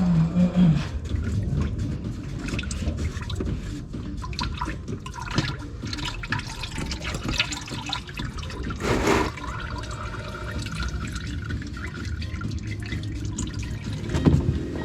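Engine oil draining and trickling into a drain pan, a steady pouring sound with scattered small clicks. A short, louder rush of noise comes about nine seconds in.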